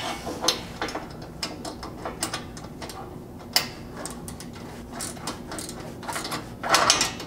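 Half-inch wrenches tightening 5/16 hex-head bolts and flange nuts on a steel roof-rack crossbar and upright, making a run of quick, irregular metal ratcheting clicks. A louder cluster of clicks comes near the end.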